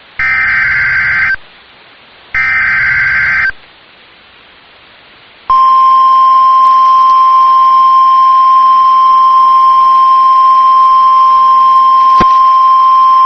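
NOAA Weather Radio alert signal: the last two bursts of the SAME digital header, each about a second long and a second apart. After a short pause, the steady 1050 Hz warning alarm tone starts about five and a half seconds in and holds. The tone signals that a warning message is about to be broadcast.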